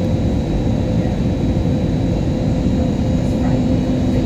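Steady airliner cabin noise inside an Airbus A320neo: a constant low rumble of engines and airflow with a steady hum, joined by a lower hum about two and a half seconds in.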